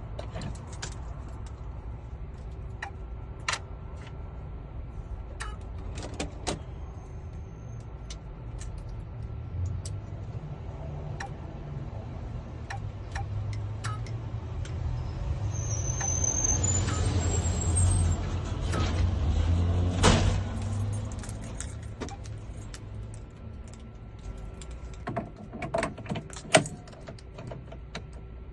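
Car keys being handled, with scattered small clicks and knocks. A low hum swells to a peak about twenty seconds in, with a short rising whine just before it, then fades.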